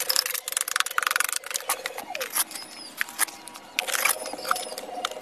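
Steel trowel scraping and tapping wet cement mortar onto brickwork in a quick run of short scrapes and knocks.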